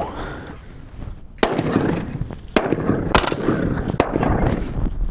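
Shotguns firing at pigeons in a quick volley of about five shots, the first about a second and a half in, each with a short echoing tail.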